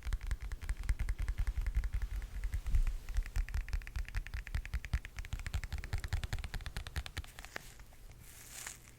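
Rapid close-up crackling and tapping on an ASMR microphone, many small clicks a second with a heavy low thump. It thins out about seven and a half seconds in, and a brief brushing hiss follows near the end.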